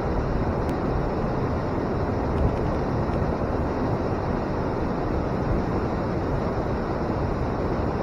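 River water pouring over a weir and churning in the pool below: a steady, low roar.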